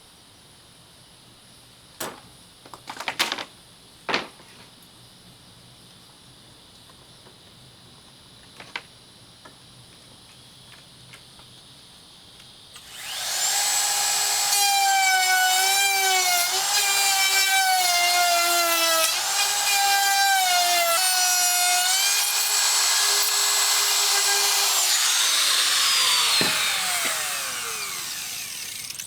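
A few sharp knocks of wood, then an electric saw motor spinning up to a loud whine, its pitch dipping and recovering again and again as it bogs under cuts through wood, before it spins down with a falling whine near the end.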